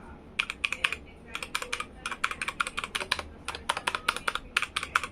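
Redragon K617 Fizz 60% mechanical gaming keyboard being typed on: quick runs of keystrokes, several clacks at a time, with short pauses between the runs.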